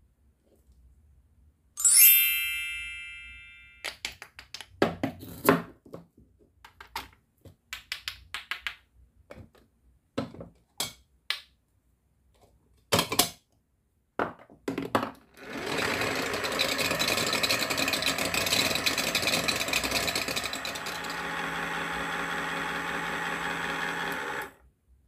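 A bright chime rings and fades, then plastic clicks and knocks as a toy blender's parts are handled and fitted together. Its small battery motor then runs steadily for about nine seconds, settles a little lower a few seconds before the end, and cuts off suddenly.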